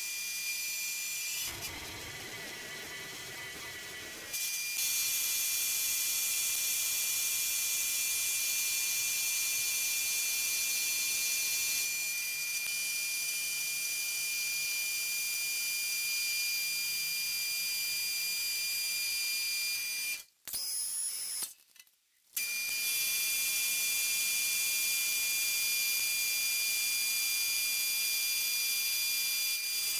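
Jet JMD-18 mill-drill with a 3/8-inch end mill taking a finish cut in 4140 steel: a steady high-pitched whine from the spindle and cutter with a hiss of cutting. The sound drops out twice briefly about two-thirds of the way through.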